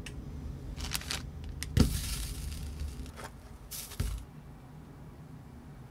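A slice of toast dropped into a ceramic frying pan, landing with a sharp knock about two seconds in, followed by a second of rustling and scraping; a second, softer knock comes about four seconds in. A low steady hum runs underneath.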